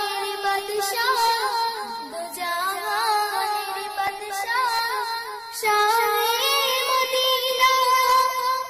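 Bangla Islamic gojol: a high, child-like or female voice sings wavering, ornamented melodic lines with no clear words, over a steady held backing tone. There is a brief break about five and a half seconds in before the phrase resumes more fully.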